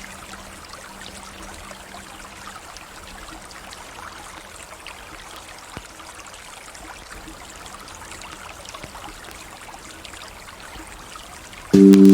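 River water flowing steadily, an even rushing and trickling. A faint low held music note fades out in the first couple of seconds, and loud sustained music chords start abruptly just before the end.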